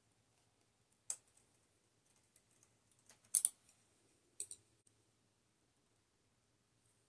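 Small sharp metal clicks as a hand transfer tool picks up edge stitches and places them onto the latch needles of a Brother 965i standard-gauge knitting machine: one click about a second in, a louder double click at about three and a half seconds, and another pair a second later.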